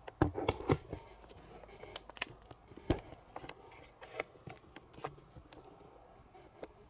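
Handling noise of a camera being fixed onto a tripod: scattered clicks and knocks, the loudest just after the start and a low thump about three seconds in.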